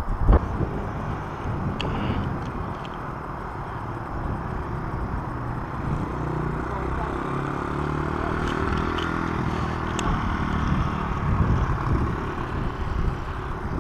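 A small motor running, its pitch wavering up and down, over a steady rushing noise with a few clicks.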